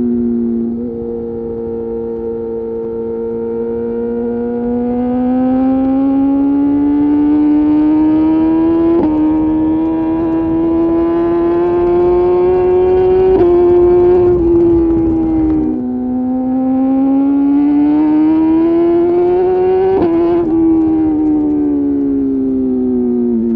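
2021 BMW S1000RR's inline-four engine through an Austin Racing GP1R full exhaust with inconel headers and titanium pipe: the note climbs slowly under throttle, drops away about halfway through, climbs again and falls off near the end, with brief jumps in pitch at gear changes. Wind rush builds under the engine at the highest speed.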